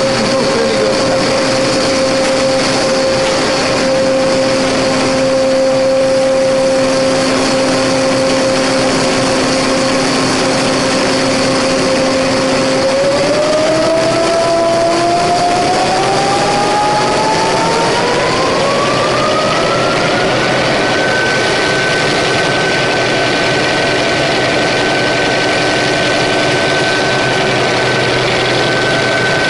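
Paper napkin making machine running with a steady motor whine over mechanical clatter. About halfway through, the whine rises smoothly in pitch for several seconds and then holds at the higher pitch: the machine speeding up.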